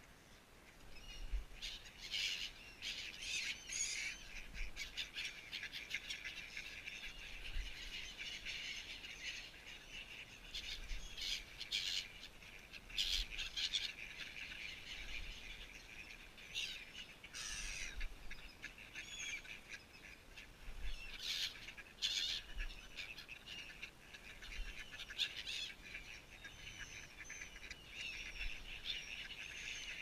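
A flock of gulls calling over one another in a dense, unbroken chatter of high cries, starting about a second in.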